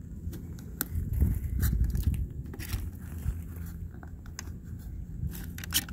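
A plastic-backed side-view mirror glass being handled and fitted into its housing: scattered small clicks and scrapes over a low rumble. The rumble is strongest in the first couple of seconds, and a quick run of clicks comes near the end.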